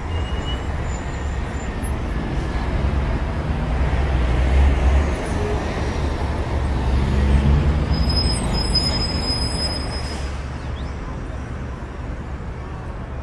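A steady low rumble with a hiss over it, swelling a little in the middle and easing off toward the end.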